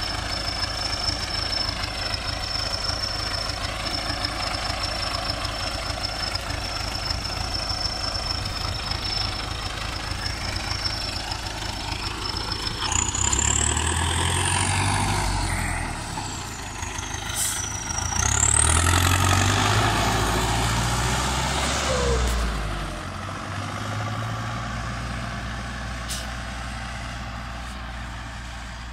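MTZ 820.4 tractor's turbocharged diesel engine running, with a steady high whistle. About halfway through it revs up for several seconds, its high whistle rising and falling with the revs. Then it settles back and fades away near the end.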